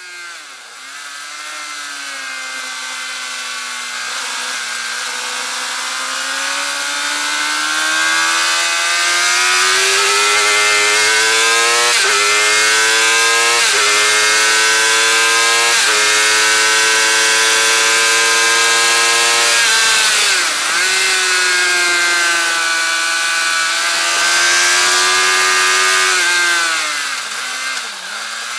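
Suzuki GSX-R 750 inline-four engine pulling hard through the gears, its note climbing and then dropping sharply at three quick upshifts midway. It holds at high revs, dips briefly about two-thirds through, and eases off near the end. A high rush of wind lies over the engine.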